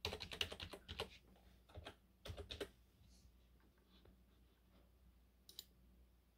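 Computer keyboard keys clicking in quick, uneven runs for the first two and a half seconds or so, then a single click a few seconds later.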